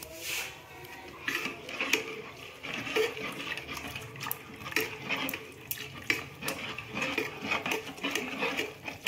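Steel ladle scraping and clinking against the inside of an aluminium pot as a thin rice-flour batter is stirred, in quick irregular strokes.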